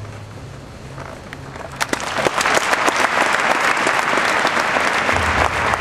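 Large audience applauding. The clapping starts about two seconds in and builds quickly to a dense, steady round.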